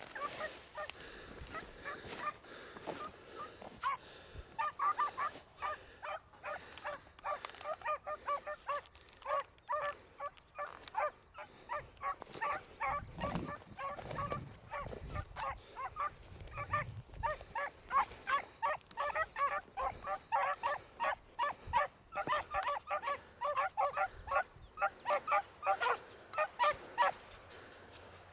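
A pack of beagles baying as they run a rabbit's track: many short, pitched hound calls overlapping in a fast, steady chop that starts a few seconds in and keeps going.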